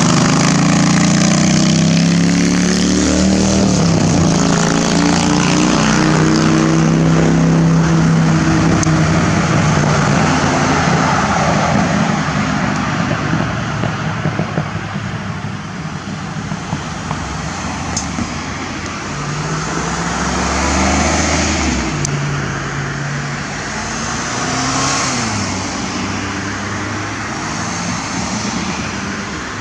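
Car engine and road noise heard from inside a moving car, the engine note drifting up and down in pitch as the car speeds up and slows.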